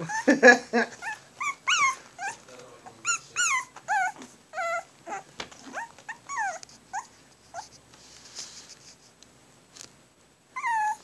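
Puppies whining and whimpering: a string of short, high cries that bend up and then fall in pitch, a couple a second, breaking off about eight seconds in before starting again near the end.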